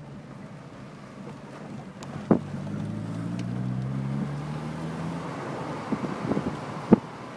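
Car engine and tyre noise heard from inside the cabin, the engine note rising from about two seconds in as the car picks up speed. Two brief knocks, one about two seconds in and one near the end.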